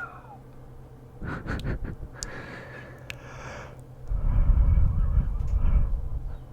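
A man breathing close to the microphone: two soft breaths, then about four seconds in a longer, louder exhale that hits the mic as a low rumble for about two seconds.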